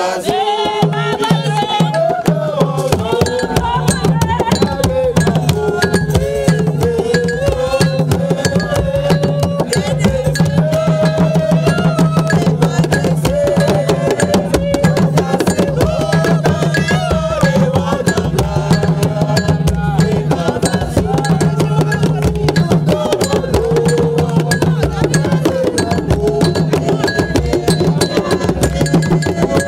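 Group of hand drums, among them an hourglass talking drum held under the arm, beaten in a fast, steady rhythm. A group sings along over the drumming.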